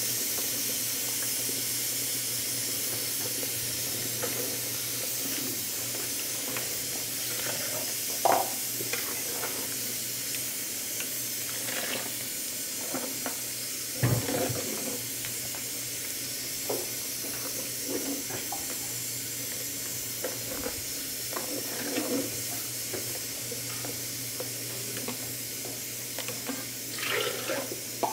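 Chile and tomato sauce boiling hard in a pot, a steady bubbling hiss, with a metal spoon stirring and knocking against the pot now and then; the loudest knock is about halfway through. Near the end a thick blended guaje sauce pours into the boiling liquid.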